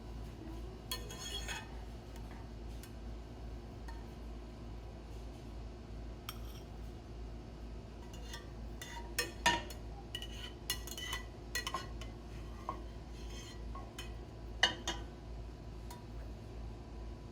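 Kitchen utensils and dishes clinking and knocking now and then over a steady low hum, with the loudest clinks about halfway through and again near fifteen seconds in.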